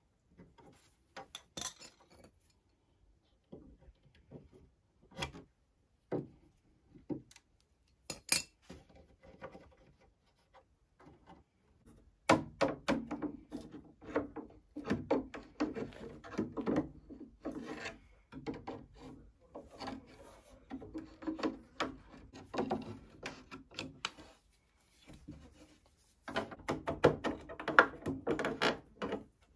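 Steel chisel scraping and picking at the old wood of a chest in short, separate scrapes. Partway through it turns to dense, continuous scraping and creaking as a flat blade is levered behind a wooden corner strip to pry it off the chest, loudest near the end.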